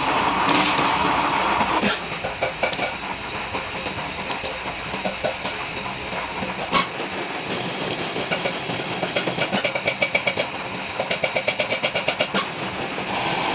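Manual metal lathe running, a steady machine noise with scattered sharp metallic clicks. In the last few seconds it turns into a fast, even ticking of about six a second.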